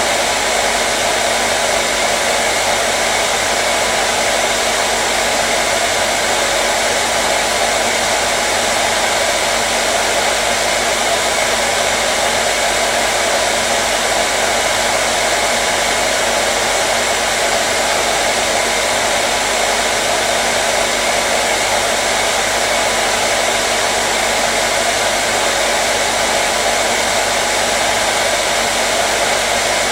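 Hair dryer running steadily: an even, unbroken rush of blown air with a faint motor hum, used as white noise to soothe a colicky baby.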